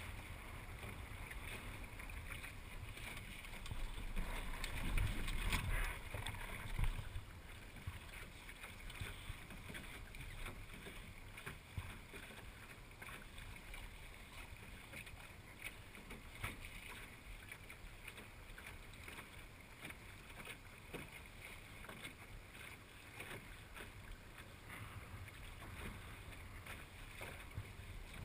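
Water washing along the hull of a small sailing dinghy under way, with wind buffeting the microphone, strongest between about four and seven seconds in, and scattered small splashes or ticks.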